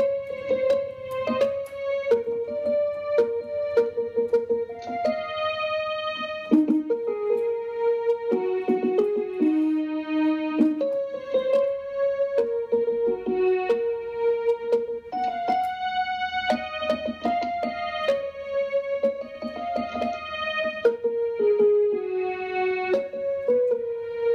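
Electronic keyboard played with a piano sound: a melody of single struck notes, each held for about half a second to a second, moving up and down in a steady phrase.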